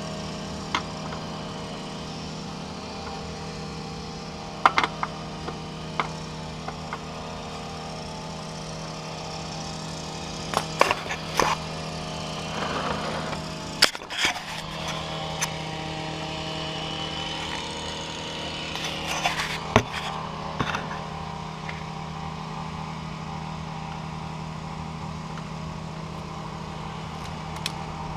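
Scattered clicks and clanks of hand tools and small metal parts as a scooter's belt guard and its nuts, washers and spacers are put back on, over a steady mechanical hum.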